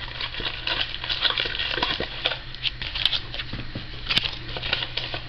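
Irregular rustling, crinkling and small clicks of sealed trading card packs and their packaging being handled, over a low steady hum.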